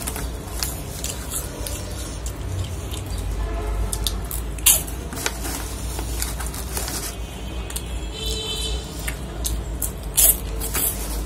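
Crinkling of a foil-lined snack bag as a hand rummages in it, with crunching of puffed Poppers snack sticks being bitten and chewed close to the microphone. Two louder sharp crunches stand out, about halfway and near the end.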